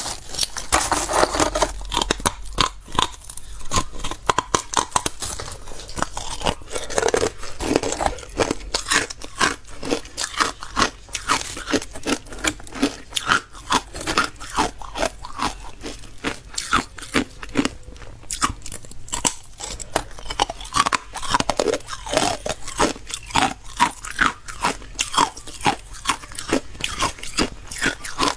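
Close-miked biting and chewing of frosty carbonated ice: a dense run of sharp crunches, several a second, as the brittle, snow-like ice breaks between the teeth.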